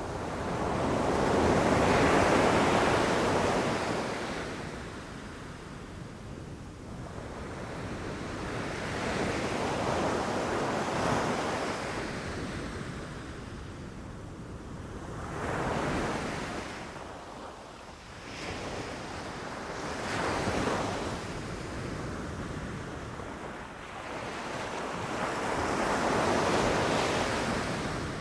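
Ocean waves breaking and washing up a beach, a wash of surf that swells and fades about five times, the loudest surge near the start.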